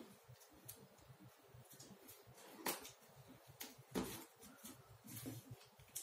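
Faint, scattered crinkles and soft taps of a small sheet of origami paper being folded and pressed flat with the fingers, a few louder rustles about two and a half and four seconds in.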